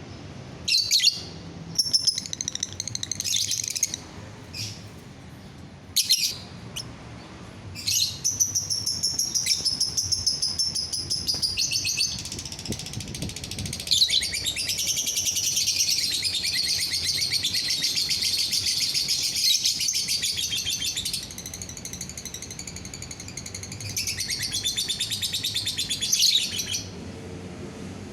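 Lovebird singing: sharp high chirps, then a long rapid chattering trill lasting over ten seconds, followed by more chirps near the end.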